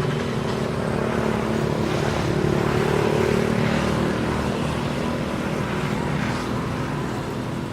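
A motor vehicle's engine running with a steady hum, growing louder toward the middle and fading near the end.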